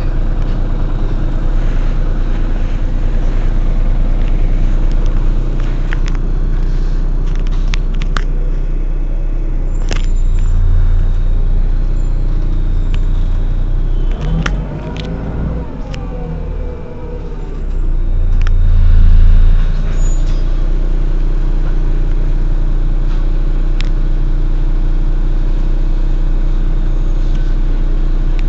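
Heuliez GX 127 city bus's diesel engine idling steadily at a stop, with scattered light clicks. About halfway through, a sound glides down in pitch, and a few seconds later there is a brief swell of louder engine noise.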